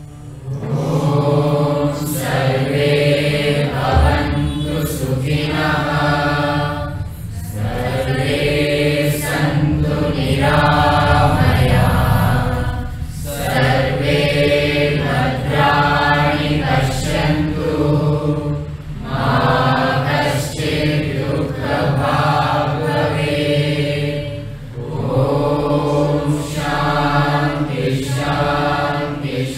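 Several voices chant Sanskrit verses together in long, drawn-out phrases, breaking every five or six seconds, over a steady low hum.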